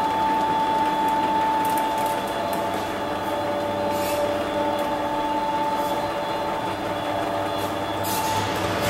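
Electric drive motor and gearbox of a 1974 kitchen service lift running with a steady whine, with a few faint clicks and a short hiss near the end.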